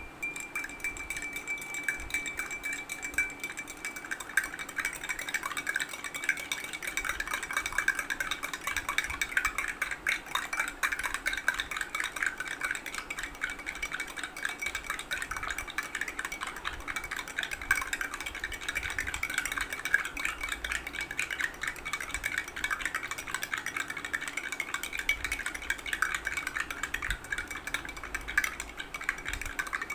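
A spoon stirring water in a drinking glass, quick continuous scraping and ticking against the glass, dissolving soap shavings in Betadine-tinted water. A thin steady high tone runs underneath.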